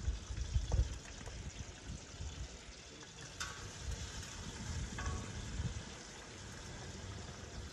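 Fish sizzling in a pot of hot oil on a propane burner as pieces are lowered in with metal tongs, a steady frying hiss. The tongs click against the pot twice, with a short metallic ring.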